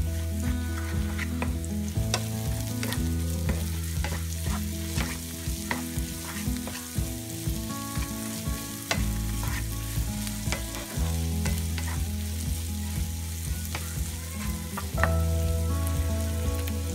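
Egg and sliced onions sizzling in olive oil in a frying pan, stirred with a wooden spatula that scrapes and taps the pan bottom in frequent short strokes.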